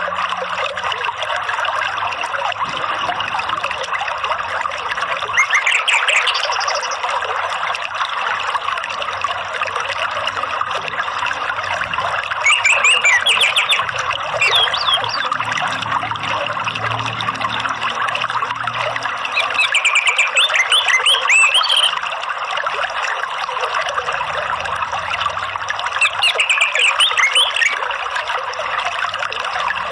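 Steady running water, a trickling stream, with four short bursts of quick chirping from an orange-headed thrush (anis merah), each a second or two long and roughly seven seconds apart.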